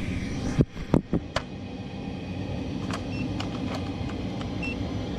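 Gas furnace's fan running with a steady low hum. A few sharp clicks and knocks come about a second in.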